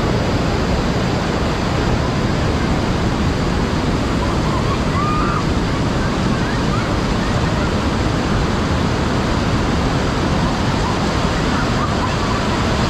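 Floodwater rushing in a steady, loud, unbroken roar, with a few faint distant voices now and then.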